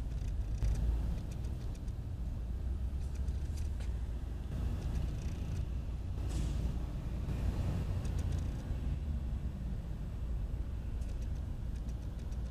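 The Cummins VTA28 V12 diesel engine of a 500 kW generator set running steadily, a low rumble.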